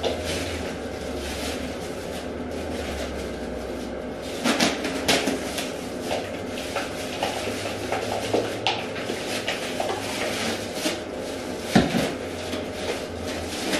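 Plastic bottles and containers for hair dye clicking and clattering on a bathroom counter as they are handled and set out. A low hum runs under the first few seconds, and the loudest knock comes near the end.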